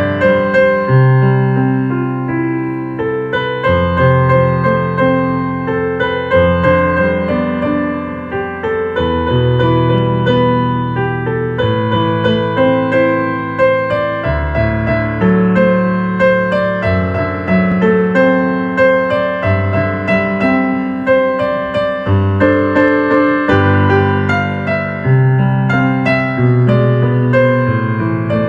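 Ambient instrumental piano music: a melody of many short notes over held low notes that change every second or two.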